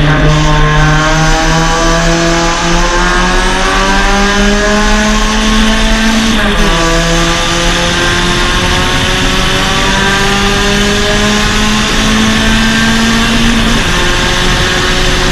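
Suzuki Swift Sport race car's 1.6-litre four-cylinder engine at full throttle, heard onboard. Its pitch climbs slowly as it pulls through a gear and drops sharply at an upshift about six and a half seconds in. It then climbs again until another upshift near the end.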